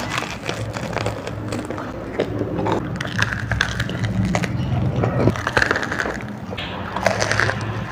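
Close-miked mouth sounds of Wai Wai instant noodles being chewed: an irregular run of small clicks, smacks and crunches.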